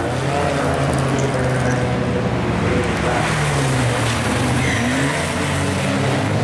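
Historic racing cars driving past one after another on a circuit, their engines running steadily with slight rises and falls in pitch.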